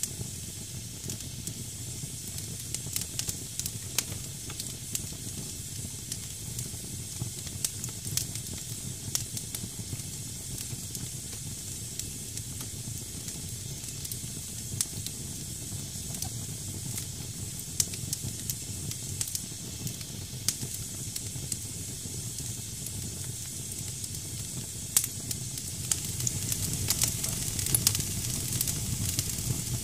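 Damp firewood burning in a fireplace: a steady high hiss from the wet wood, with scattered sharp crackles over a low rumble. It grows a little louder near the end.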